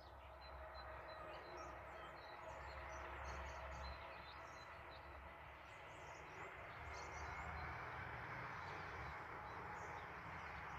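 A distant car driving by: a faint, steady rushing that swells a little in the second half, with small birds chirping now and then.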